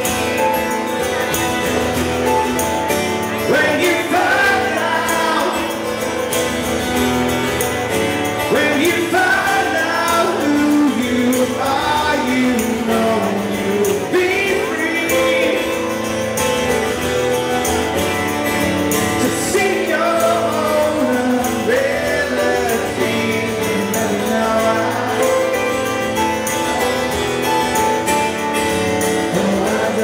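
Live band performance: a male voice singing over strummed acoustic guitar and the band's backing.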